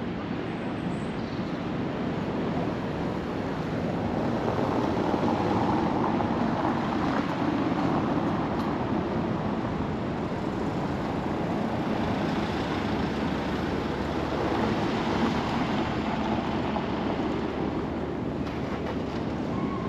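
Steady outdoor rushing noise of wind and distant street traffic, swelling a little a few seconds in.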